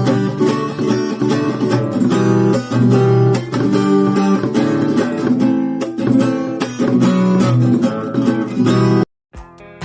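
Acoustic guitar strummed in chords with a percussive knock on the strings worked into the strumming, giving a steady, driving rhythm of sharp strokes. The playing cuts off abruptly about nine seconds in, then quieter playing starts.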